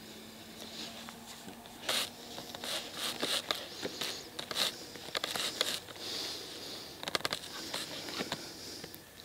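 Rustling and irregular clicking of clothing and gear being handled close to the microphone, in short crinkling bursts with sharp clicks packed more densely in the middle and near the end.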